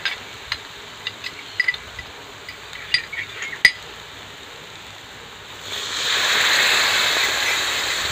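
Metal spatula clinking and scraping against a metal kadai as a thick spice paste is stirred and fried. About five and a half seconds in, water poured into the hot pan sets off a loud, steady sizzling, the loudest sound here.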